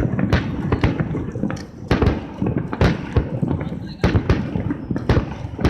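Aerial fireworks bursting in quick succession: a string of sharp bangs, about one heavy boom a second, with smaller crackling reports between them.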